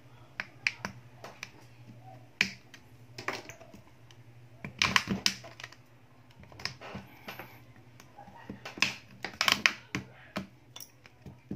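Back cover of a Vivo Y11 phone being prised off by hand, its clips letting go in a scattered series of sharp clicks, bunched most densely about five and nine seconds in.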